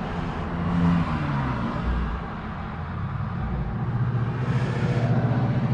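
Pickup truck engine running at idle, with a brief rise and fall in pitch about a second in, then a steady low hum.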